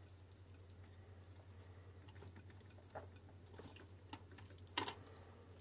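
Faint clicks and taps of wires and connectors being handled at a battery pack's output lead, a few seconds apart, the loudest a sharp click near the end, over a low steady hum.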